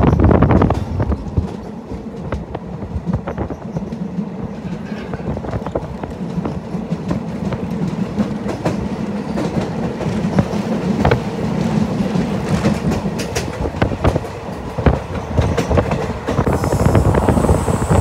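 Passenger train running along the line, heard from aboard: a steady rumble with the clickety-clack of wheels over rail joints. It grows louder near the end, with a faint high-pitched squeal.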